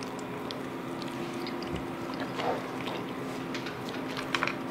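Close-up chewing of cooked cow-head meat, eaten by hand, with scattered small wet clicks and smacks over a faint steady hum.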